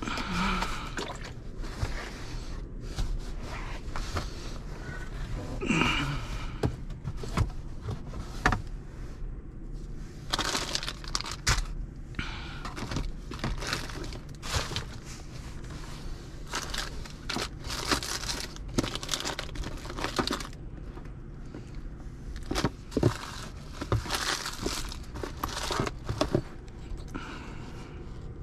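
Rummaging through a small plastic cooler: food packaging crinkling, items knocking and scraping against each other and the cooler, in irregular handling noises. A steady low hum runs underneath.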